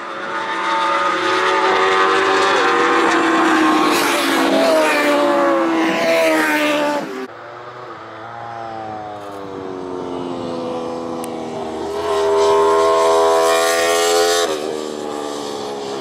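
Racing motorcycle engines at high revs passing on track, their pitch rising and falling. The sound cuts off abruptly about seven seconds in. Another bike then comes up louder and higher and drops away suddenly shortly before the end.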